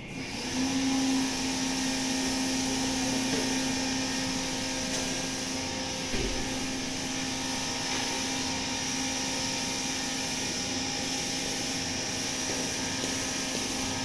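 A motor-driven machine starts up and runs steadily: an even blower-like rush with a low steady hum. There is a single thump about six seconds in.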